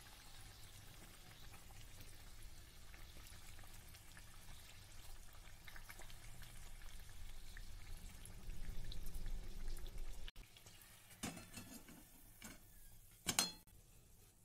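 Naan puri deep-frying in hot oil in a kadai: a faint, steady sizzle with light crackles, over a low hum. About ten seconds in it stops abruptly, followed by a couple of sharp knocks.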